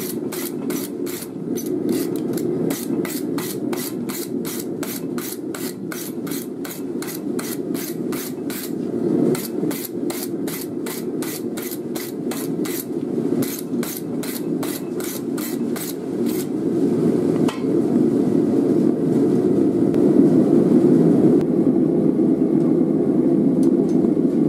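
A hand hammer strikes a red-hot steel knife blade on an anvil, forging it from an old file, in a quick, even rhythm of ringing blows that stops about two-thirds of the way through. A steady low rumble runs underneath and grows louder near the end.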